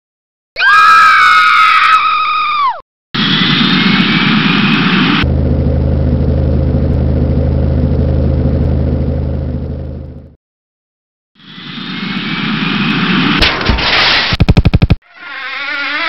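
A run of cartoon sound effects. First a high pitched tone that bends down and stops. Then a vehicle engine runs steadily for several seconds and fades out, and after a pause a rising rush with a rapid burst of crackling clicks near the end.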